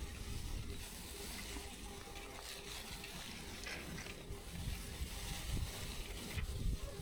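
Wind rumbling on the microphone over steady riding noise from a moving bike, with a faint steady hum underneath.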